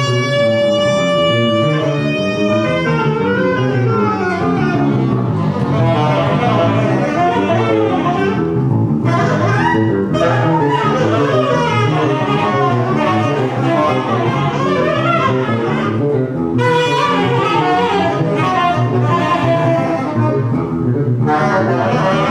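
Live improvised jazz ensemble playing: a saxophone holds one long note for the first couple of seconds, then busy, overlapping melodic lines continue over a double bass.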